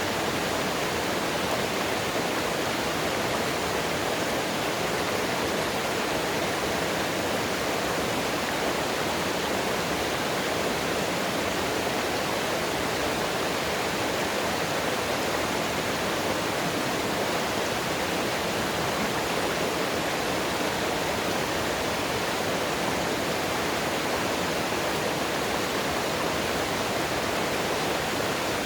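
Mountain water rushing, a steady, even rush with no breaks or changes.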